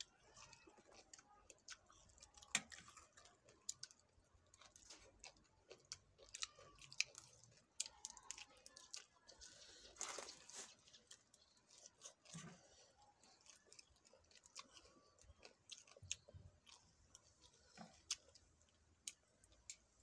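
Faint close-up chewing of papaya salad and raw leafy greens eaten by hand: wet mouth smacks and scattered small crunches and clicks, with a sharper crunch about 2.5 s in and a brief louder rustle-crunch about 10 s in.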